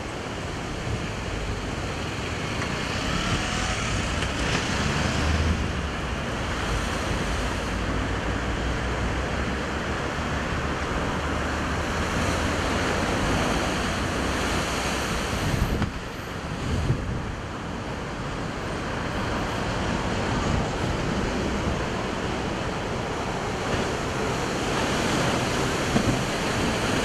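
Continuous noise of heavy ocean surf breaking on rocks, rising and falling as the sets come in, with wind buffeting the microphone.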